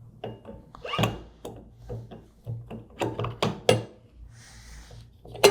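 Metal pump parts clinking and knocking as the casing assembly is slid onto the motor shaft and seated: a series of short sharp clicks, with a brief scraping hiss near the end.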